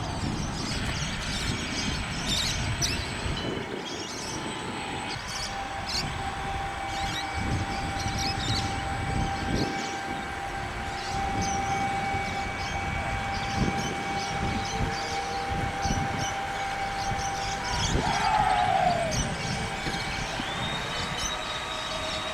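Radio-controlled scale model boat running with a steady high whine, which drops quickly in pitch about eighteen seconds in as the boat slows, over a hiss with scattered clicks.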